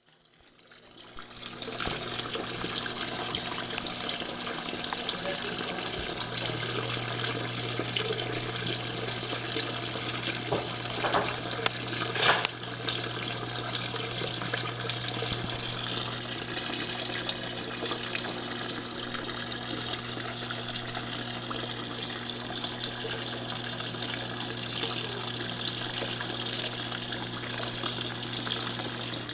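Electrolux LM06 washing machine filling with water: a steady rush of water pouring into the tub over a constant low hum, building up over the first two seconds.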